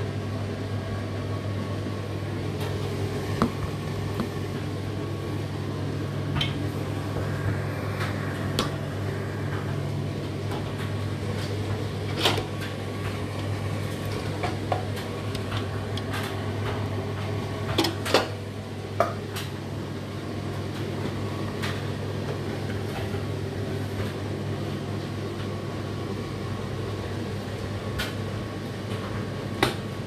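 Occasional clinks and knocks of non-stick pans, glass lids and plates shifting in an open dishwasher's racks, over a steady low hum. There are two louder clinks close together a little past the middle and a sharp click near the end.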